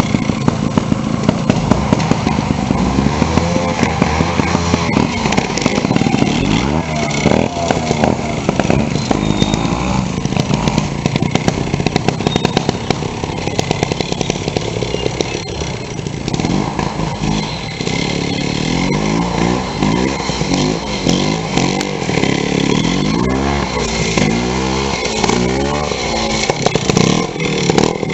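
Vintage trials motorcycle engine revving in short bursts, its pitch rising and falling over and over as the throttle is worked through a slow, steep off-road section.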